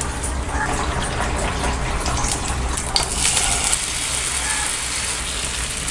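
Hot oil sizzling in a nonstick pan as oats dosa batter is ladled in. A sharp clink about three seconds in, after which the sizzle grows brighter.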